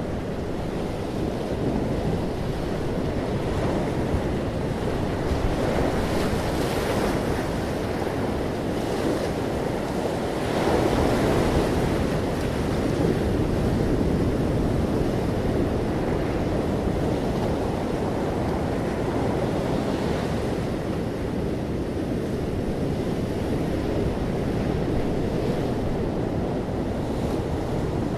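Ocean waves breaking on a beach, a continuous surf that swells and eases, with a stronger wave about ten seconds in.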